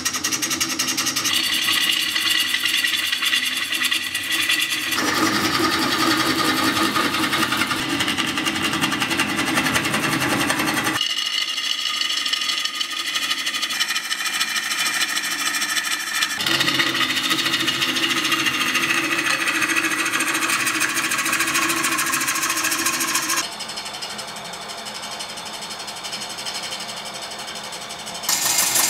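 Bowl gouge cutting a large spinning green elm bowl on a wood lathe: a fast, rattling cutting noise with ringing tones that slide downward in pitch. The sound changes abruptly several times and drops to a quieter cut near the end.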